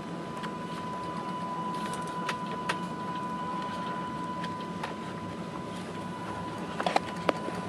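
Steady drone of a ship's engines and machinery heard inside the bridge, with a thin steady high tone running through it and scattered light clicks and rattles. A few sharper knocks come close together near the end.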